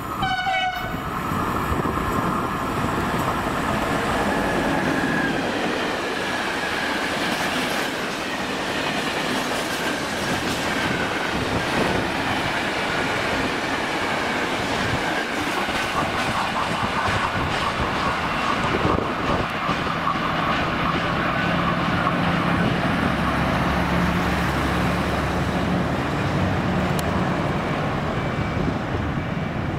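Freight train of empty flat wagons behind a Medway Siemens Vectron electric locomotive passing through the station: steady rumble of wheels clattering over the track, with some wheel squeal. A low steady hum joins about twenty seconds in.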